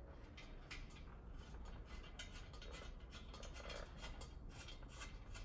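Faint, irregular small clicks and rustles over a low steady hum.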